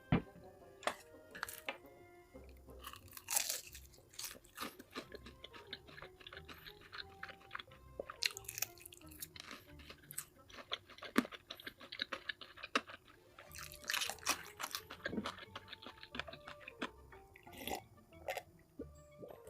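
Close-miked eating: a person chewing and crunching food, with many short mouth clicks and several louder crunchy bites.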